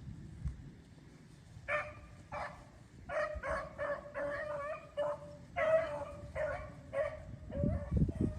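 Beagle baying in a string of about ten short bawls, starting about two seconds in: the hound is running a cottontail rabbit's scent trail. Footsteps crunch through brush near the end.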